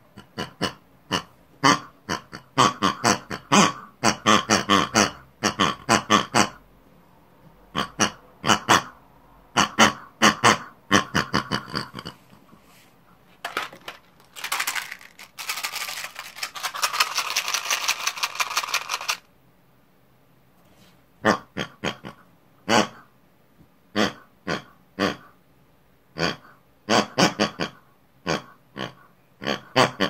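Pig-like noises made with a human voice: many short, pitched calls one after another. In the middle comes a longer rasping noise of about four seconds, then a pause of about two seconds before more short calls.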